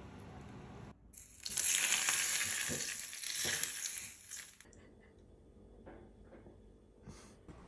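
Very hot olive oil poured from a small pan onto sliced green onions over pasta and minced meat, sizzling loudly for about three seconds and cutting off suddenly. A few faint clicks follow.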